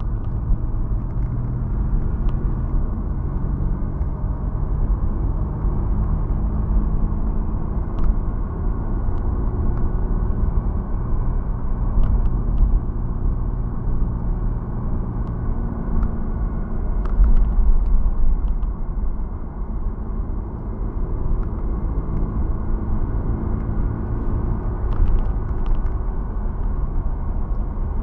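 Steady low rumble inside the cabin of a Mercedes-Benz W163 M-Class, with a few faint clicks scattered through it. It is an unexplained noise that the owner is trying to trace near the automatic gear selector.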